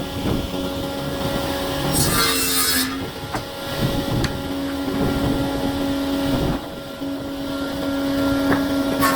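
Woodworking power tool working wood: a steady motor hum, with a short burst of hissing cut noise about two seconds in and a few light knocks.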